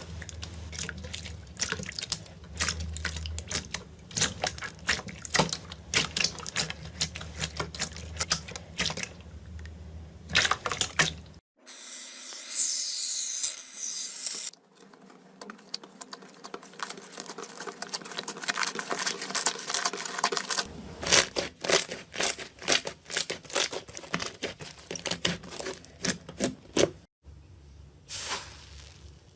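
Slime being squeezed, pressed and poked by hand: a dense run of small wet clicks and crackling pops, with a short stretch of fizzing hiss and abrupt changes in texture where one clip cuts to the next.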